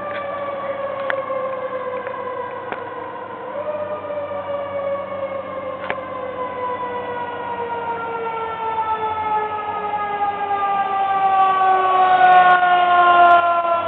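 Siren wailing in a long, slow fall in pitch, a second siren tone joining a few seconds in and overlapping it, growing louder toward the end.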